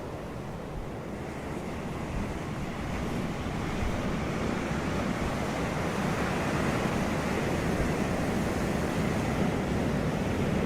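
Ocean surf washing onto a beach: a steady rush of breaking waves that swells a little louder in the first few seconds and then holds.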